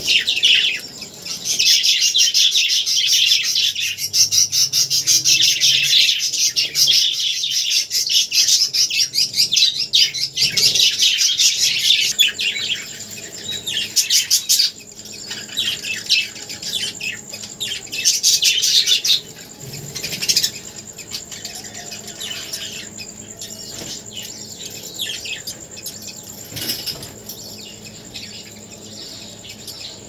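Budgerigars chattering and chirping rapidly. The chirping is continuous for about the first twelve seconds, comes in a few shorter bursts after that, then drops to faint scattered chirps.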